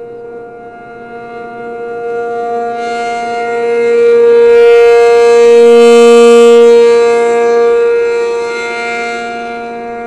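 ACA P-50 rotating dual-tone outdoor warning siren sounding its steady alert signal, a held two-note chord at 470 and 705 Hz. The rotating horn sweeps past: the sound swells to its loudest about four to seven seconds in, then fades as the horn turns away.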